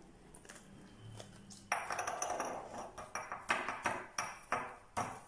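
Metal spoon tapping and scraping against a glass dessert bowl while ice cream is spooned in: quiet at first, then a quick run of about eight clinks starting a little under two seconds in.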